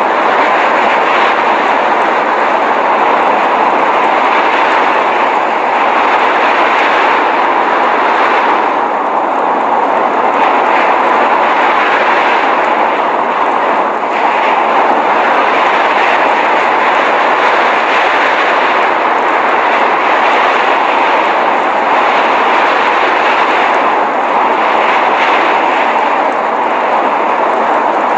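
Blizzard noise: wind and blowing snow rushing steadily without a break, loud and even throughout.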